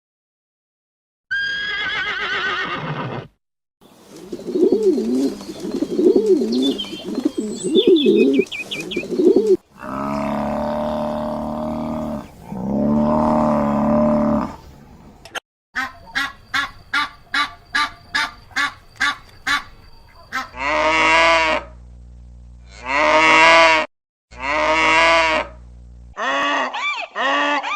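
A series of different animal calls, one clip after another, with short gaps between them. They include long drawn-out calls and a quick run of short repeated calls.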